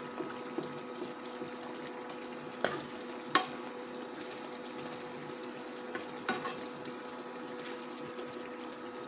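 Metal spoon stirring chicken karahi simmering in its gravy in a pan, with a steady bubbling sizzle and a steady hum underneath. The spoon knocks against the pan about three times.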